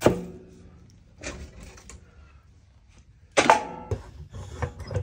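Handling knocks and clanks at a cast-iron wood stove as kindling goes into the firebox. A sharp knock comes right at the start, and about three and a half seconds in there is a loud metallic clank with a brief ring as the stove door is shut.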